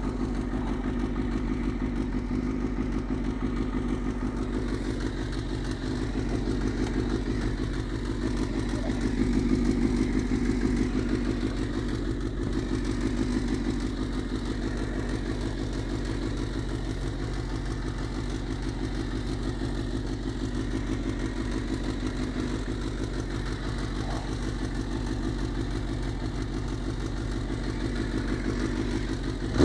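Suzuki GSX-R600 sportbike's inline-four engine running steadily at low revs, close to idle.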